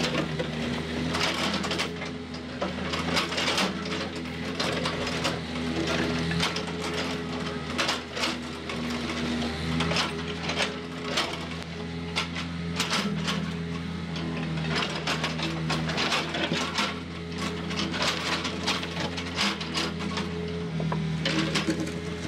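Volvo EW55B wheeled excavator's diesel engine running steadily under load while its bucket digs and scrapes through rocky soil, with frequent knocks and clatter of stones against the steel bucket.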